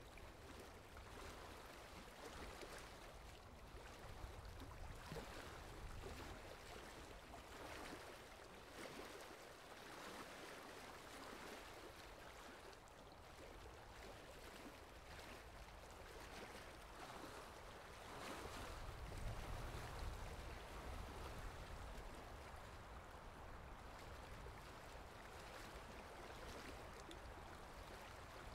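Felt-tip marker scratching across paper in repeated colouring strokes, a faint, soft swishing that swells and fades with each stroke. A low rumble comes in about two-thirds of the way through.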